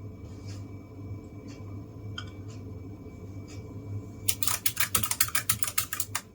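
Fast typing on a Keychron K1SE low-profile keyboard with clicky blue optical switches, a dense run of sharp key clicks starting about four seconds in. Before that there are only a few faint, scattered clicks.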